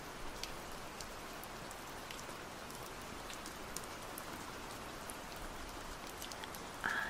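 Steady rain sound with faint scattered drop clicks.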